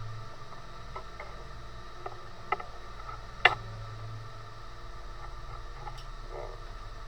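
Steady hum of a machine running, with several short sharp clicks and knocks, the loudest about three and a half seconds in.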